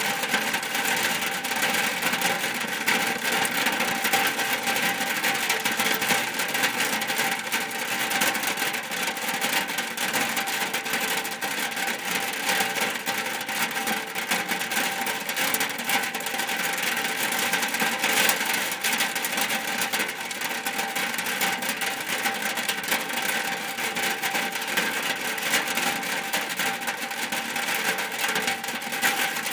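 Rain falling steadily on a shack roof: an even, dense patter of countless small drop hits.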